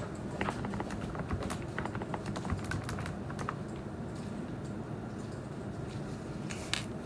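Typing on a computer keyboard: quick, irregular keystrokes, with one louder clack near the end.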